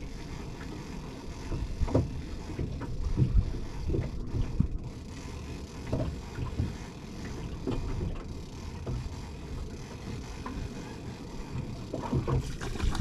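Low rumble of wind on the microphone aboard a small anchored fishing boat, with a few scattered light knocks from handling gear as a fish is reeled up.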